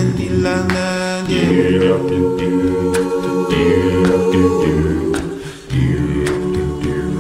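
Soundtrack music: voices singing in a choir-like chorus, holding long sustained chords. The music dips briefly about five and a half seconds in, then comes back.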